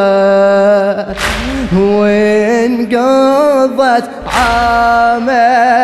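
A solo male radood chanting an unaccompanied Arabic Shia elegy (latmiya), holding long notes with wavering, melismatic ornaments and pausing briefly between phrases.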